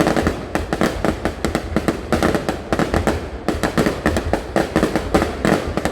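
Fireworks going off in a rapid, irregular barrage of bangs and cracks, many a second, with a brief lull near the end.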